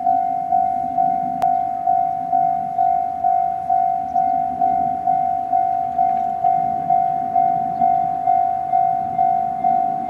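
Japanese level-crossing warning bell on the Izuhakone Railway Sunzu Line ringing its steady electronic 'kan-kan' strike about twice a second, each strike decaying before the next. It is warning that a train is approaching while the barrier arms come down.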